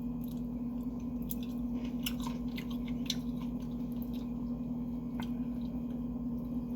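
A person chewing sushi rolls close to the microphone: soft, wet mouth sounds with scattered small clicks, over a steady low hum.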